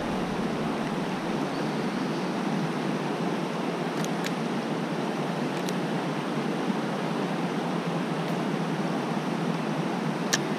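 Steady rush of creek water flowing over a shallow rocky riffle, with a few faint ticks.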